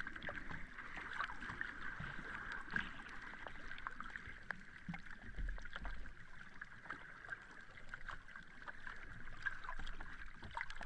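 Sea water lapping and sloshing, a steady wash dotted with many small splashes.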